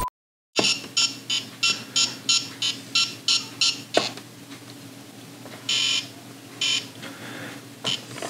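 Electronic beeps from an Ohio Art Etch A Sketch Animator: a quick, even run of short beeps, about three a second for some three seconds, then a click and a few longer, separate beeps.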